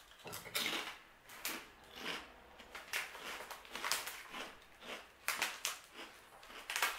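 Crunchy BBQ-flavoured crisps being bitten and chewed with the mouth close to the microphone: a string of irregular, sharp crunches, several a second.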